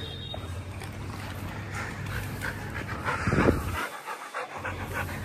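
A dog panting, with a louder breathy burst a little after three seconds in.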